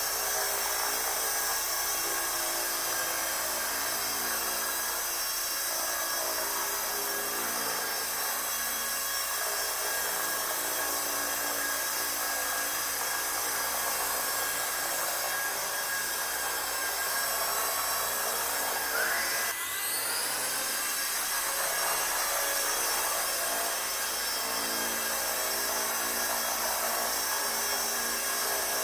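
Kyosho EP Caliber M24 electric RC helicopter in flight: its electric motor and gears whine steadily in several high tones, with the swish of the rotor blades. About two-thirds of the way through, one tone glides sharply up in pitch and then levels off.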